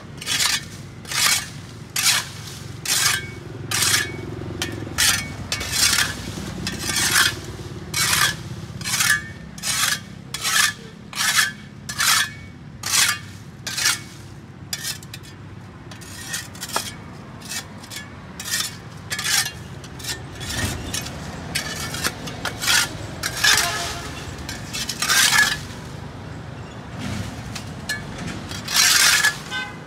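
A hand tool scraping grime off a sidewalk in quick, repeated strokes, about two a second. About halfway through the strokes slow and become irregular, and there are two louder strokes near the end.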